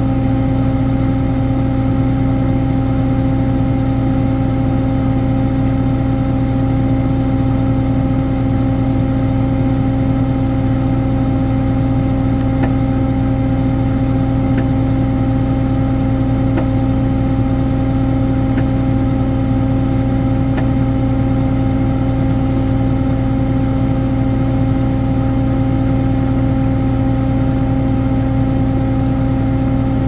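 A diesel engine running at a constant speed, a steady drone that does not change.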